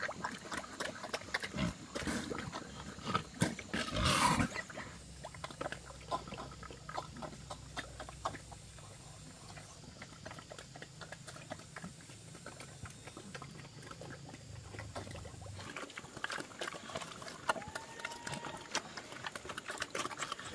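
Farm animals being cared for, with many short clicks and knocks, a loud call about four seconds in, and a few short rising-and-falling cries near the end.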